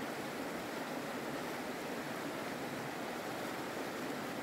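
Shallow, fast river rushing over rocks: a steady wash of water noise with no breaks.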